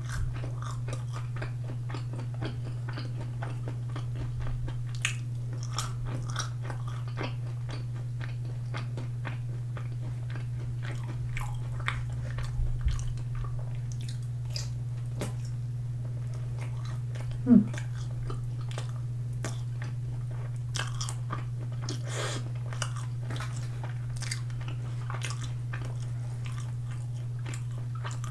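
Close-miked chewing and crunching of sauced fried chicken and fried rice balls, with many small wet mouth clicks and crackles scattered through, over a steady low hum. A brief louder mouth sound comes about two-thirds of the way through.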